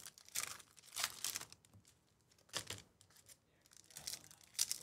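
Foil wrapper of a Topps baseball card pack being torn open and crinkled by hand, in several short bursts of crackling.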